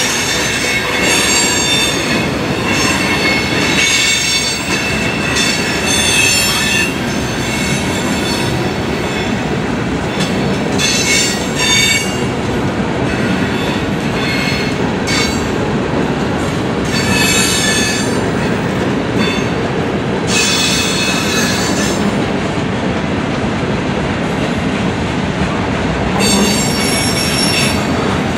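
A mixed freight train of boxcars, covered hoppers and tank cars rolling past: a steady rumble of steel wheels on the rails, with high metallic squeals from the wheels that come and go every few seconds.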